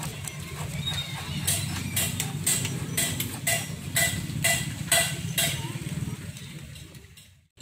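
Sharp metal taps about twice a second for several seconds while the steering head bearing's top race and lock ring are set in final adjustment on an LML NV150 (Vespa PX-type) scooter, over a steady low hum.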